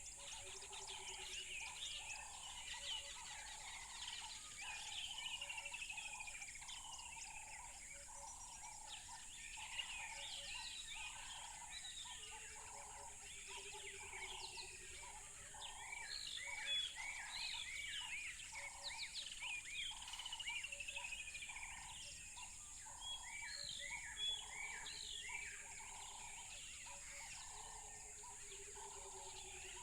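A chorus of several wild birds chirping and singing, with many quick rising and falling notes overlapping. A lower call repeats about once a second, and a steady high hiss runs underneath.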